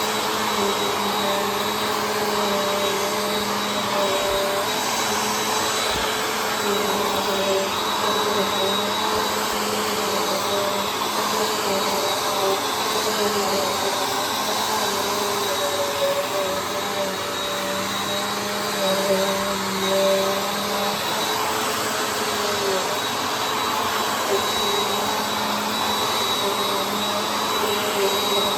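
Bissell CleanView Compact (3508) upright bagless vacuum cleaner running steadily: a constant rush of airflow over a motor hum and a thin high whine.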